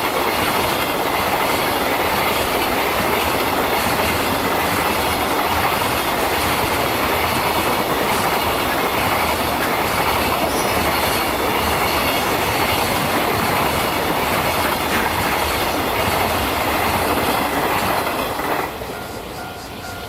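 A train passing close by for about eighteen seconds, its wheels clattering over the rail joints. As it clears, near the end, a railway level-crossing alarm is heard ringing in a steady repeating pattern.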